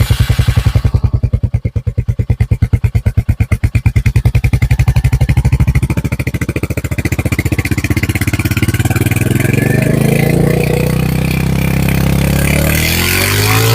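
Royal Enfield Hunter 350's single-cylinder engine running: idling with distinct, even exhaust pulses, then the revs gradually climb from about halfway through, with a blip up and back down near the end.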